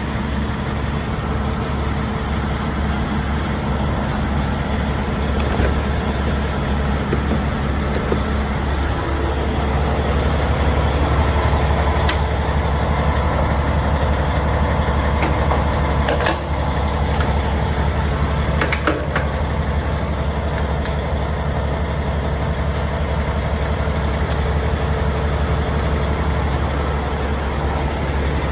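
Diesel truck engine idling steadily with a low rumble, with a few sharp clicks around the middle.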